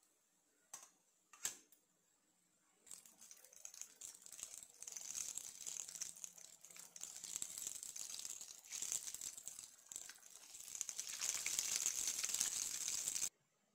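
Two light knocks, then hot oil sizzling and crackling as pinwheel samosas deep-fry, growing louder toward the end and cutting off suddenly.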